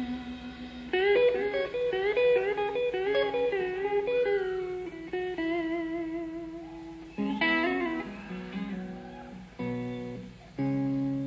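Electric guitar playing a slow lead solo: long sustained notes with bends and vibrato, a quick run of notes about seven seconds in, then held notes that start sharply near the end.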